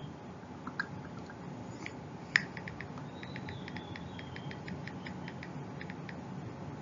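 Quiet room tone with a steady low hiss, a sharp click about two and a half seconds in, then a run of faint quick ticks.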